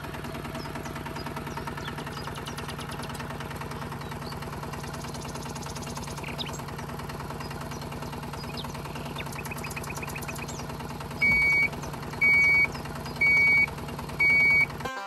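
Small motor of a DIY mini tractor running steadily with a buzzing hum. Near the end come four short electronic beeps, evenly spaced about a second apart.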